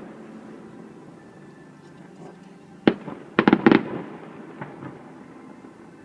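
Fireworks shells bursting: a single sharp bang about three seconds in, then a quick cluster of four or five bangs half a second later, followed by a couple of fainter pops.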